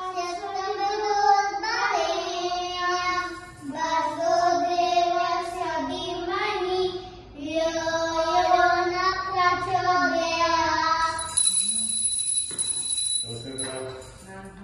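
A young boy singing a devotional prayer song in a high voice, in long held phrases with short breaks. About eleven seconds in the singing stops and a high steady ringing sounds for about two seconds.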